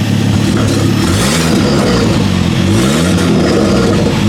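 Ford Focus XR5 Turbo's turbocharged 2.5-litre five-cylinder idling, blipped in two quick small revs, with a third just starting at the end. The exhaust has come unbolted from the turbo, so the exhaust noise leaks out at the front of the car instead of the tailpipe.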